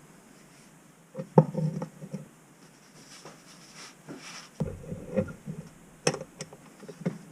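Workbench handling sounds: a few knocks and clunks with some rubbing and scraping in between, as the removed ATV starter motor is set and clamped in a bench vise.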